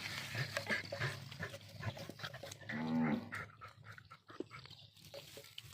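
Dogs scuffling and chewing over watermelon, with many short clicks and snaps, and one drawn-out growl about three seconds in.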